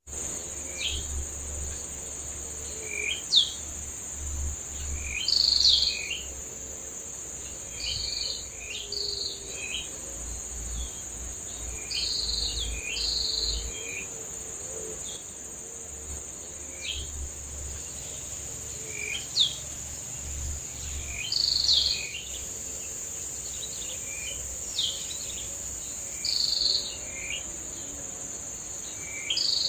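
Forest ambience: a steady high insect drone of crickets or cicadas, with short, sharp bird calls breaking in every one to three seconds.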